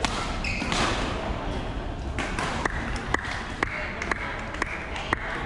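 Badminton rackets striking a shuttlecock in a sports hall: one sharp hit at the start, then a run of crisp hits about twice a second from a little past two seconds in, with voices in the background.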